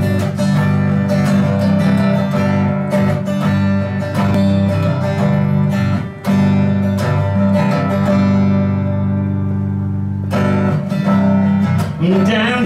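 Acoustic guitar playing a song's introduction in strummed chords, with a brief break about six seconds in; a singing voice comes in near the end.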